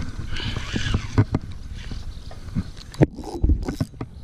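Wind rumbling on an action camera's microphone, with a few sharp knocks and bumps from the camera being handled, about a second in and again near the end.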